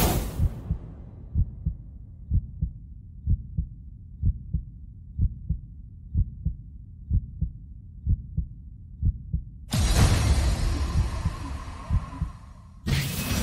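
Heartbeat sound effect: pairs of low, dull thumps about once a second, after a fading hit at the start. About ten seconds in, a loud noisy swell cuts in over it, with another sudden loud rise near the end.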